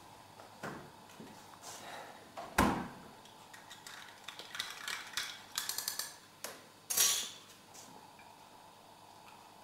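Refrigerator door swung shut with a thump about two and a half seconds in, followed by clinks and knocks of a drinking glass and kitchenware being handled, including a quick run of clinks around six seconds in and another knock just after.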